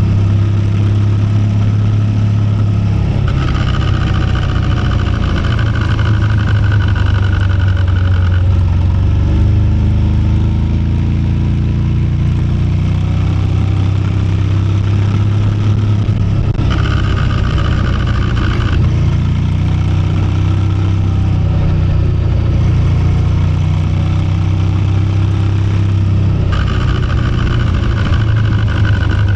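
KTM 1390 Super Adventure S Evo's V-twin running on the move, a steady low drone picked up by a microphone in the tail bag. A higher-pitched noise rises over it three times, a long stretch, a short one and one near the end; the owner traced the odd noise to a loose drive chain.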